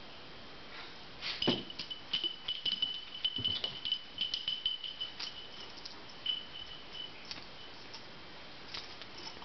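Metal dog collar tags clinking and ringing in quick light jingles as the dogs move about, with a couple of soft thumps of a body rolling on a towel over carpet. It thins out to a few scattered clinks after about seven seconds.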